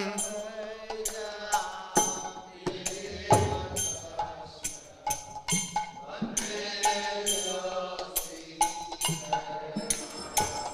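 Devotional kirtan accompaniment between sung verses: small brass hand cymbals (kartals) struck in a steady beat, about two strokes a second, over drum and sustained melodic tones.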